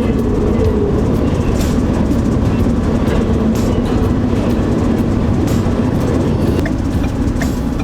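A train running close alongside a moving van, heard from inside the cab as a steady, loud rail rumble mixed with the van's road noise.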